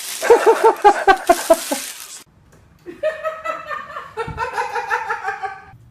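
A run of quick, evenly spaced laughs lasting about two seconds, then after a short break a longer, wavering high-pitched laugh or vocal call that stops shortly before the end.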